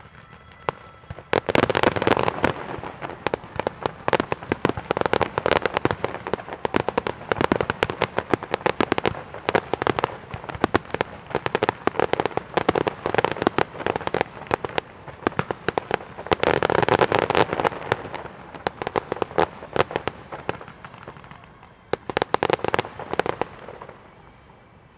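Fireworks display: a rapid, dense barrage of shell bursts and crackling, starting about a second and a half in. It swells louder several times and thins out near the end.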